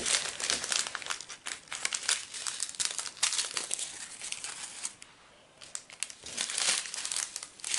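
Crinkling of thin foil packets of diamond-painting drills being handled, in a dense run of sharp crackles that goes quieter for a moment about five seconds in.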